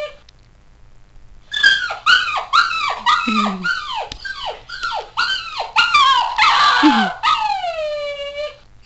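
Recorded dog whimpering and yelping played by a dog-sounds phone app. After a short pause comes a fast run of short yelps, each falling in pitch, then one long whine that falls from high to low and cuts off abruptly.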